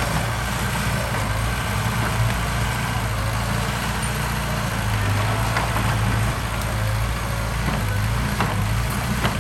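Heavy construction-machine engine running steadily with a low hum that swells and eases slightly, with a few faint knocks in the second half.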